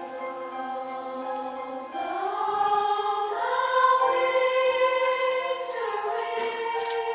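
Choir singing slow, held chords in several voice parts, the pitches moving together and rising about a third of the way in.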